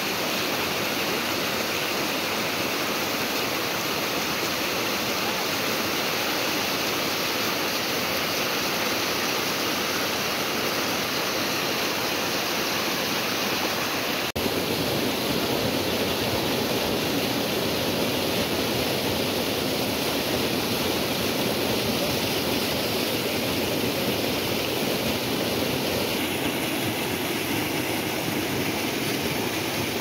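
Waterfall water rushing steadily down a rocky cliff face, close by. There is a faint click about halfway through, where the sound of the water changes slightly.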